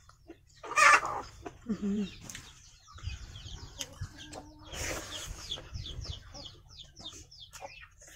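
Chickens clucking, with a run of quick, high, falling chirps in the second half.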